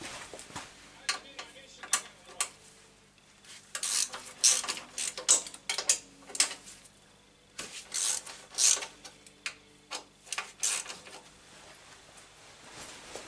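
Hand tools clicking and clinking against the metal of a Yamaha FZS1000's right footrest bracket as its bolts are worked loose: sharp metallic clicks in short irregular clusters, with pauses between them.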